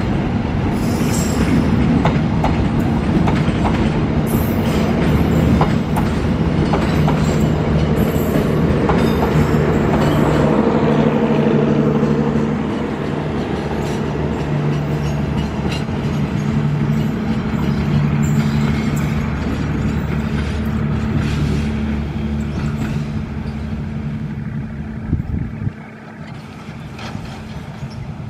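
Passenger train coaches rolling past at close range: wheels clattering over the rail joints, with a steady low hum under the rolling noise. About two seconds before the end the sound drops abruptly to a quieter, more distant level.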